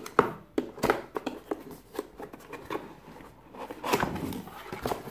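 A cardboard product box being opened by hand: irregular scraping, rustling and clicks of the flaps and packaging.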